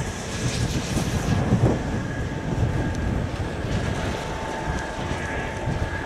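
Boeing 777 airliner's jet engines during the landing rollout just after touchdown: a steady deep rumble with a thin high whine over it, a second, lower whine joining about four seconds in.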